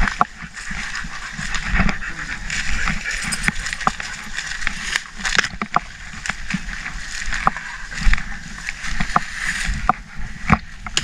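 Footsteps tramping through leafy undergrowth and dry leaf litter, with irregular sharp crackles and knocks from the carried plastic bucket and brush being pushed aside.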